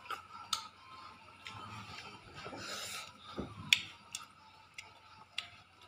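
Wet mouth smacks and sharp clicks as a man sucks food off his fingers, with a few more sharp clicks scattered through, the loudest nearly four seconds in.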